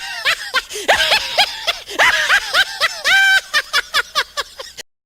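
Laughing meme sound effect: a long run of quick, pitched "ha" syllables that thin out and fade near the end, then stop abruptly.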